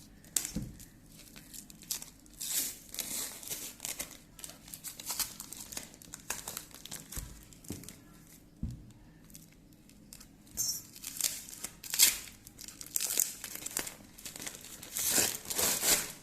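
A blade cutting open a phone's plastic-wrapped package, and the wrapping crinkled and torn away by hand in irregular bursts of rustling, with a sharp snap about twelve seconds in.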